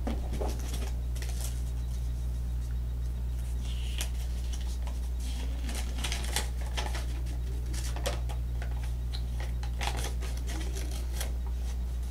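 Scattered clicks and rustles of paper and toy pieces being handled, over a steady low electrical hum.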